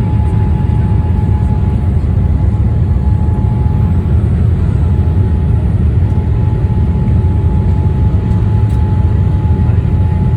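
Boeing 787 Dreamliner cabin noise in flight: a steady low rumble of the engines and airflow, with a faint steady whine above it.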